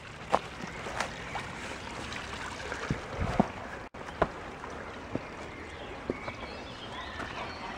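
A small forest stream running, with footsteps on rock and brushing through plants now and then.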